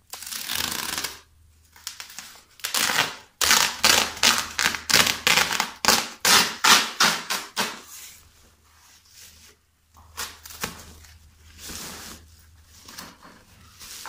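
Large plastic zip-lock bag full of carrots being crinkled and pulled open: rustling plastic with a rapid run of crackles in the middle, the loudest part, then softer rustling near the end.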